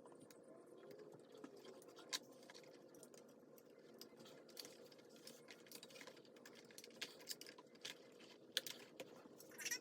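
Faint, irregular small clicks and taps over a steady low hum, the loudest taps a little after two seconds in and again near the end.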